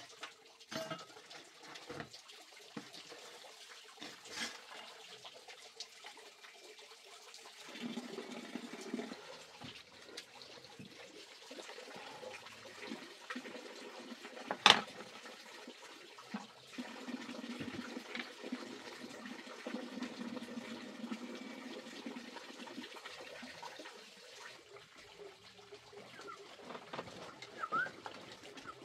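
Chopsticks clicking against bowls and a metal tray during a meal, with one sharp, loud clink about halfway through, over a steady rushing background noise.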